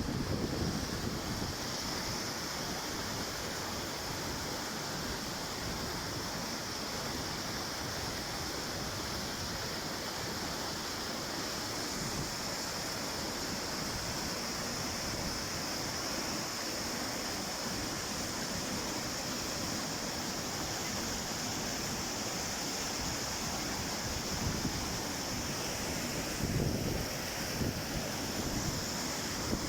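Pistyll Rhaeadr waterfall: a steady rush of falling water. A few gusts of wind buffet the microphone near the end.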